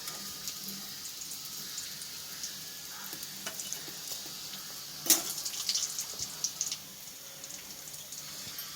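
Ayila (Indian mackerel) pieces shallow-frying in coconut oil: a steady sizzle with scattered crackles and pops. A sharp knock about five seconds in is the loudest sound.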